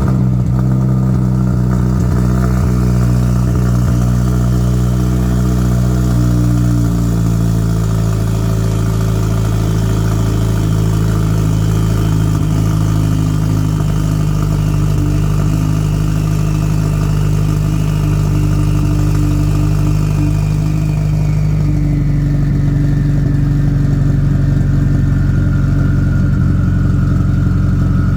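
Turbocharged Mazdaspeed 6's 2.3-litre four-cylinder idling steadily just after being started. The idle note shifts slightly a few seconds in and again about two-thirds of the way through, where a high whine falls in pitch.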